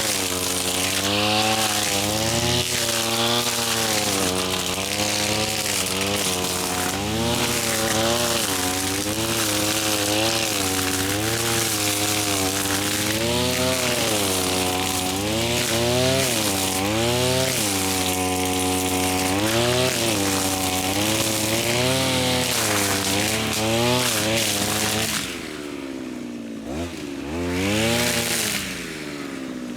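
Lawn mower engine running hard while cutting thick grass, its pitch repeatedly rising and dipping as the load changes. About 25 seconds in it is throttled back to a lower idle, with one brief rev near the end.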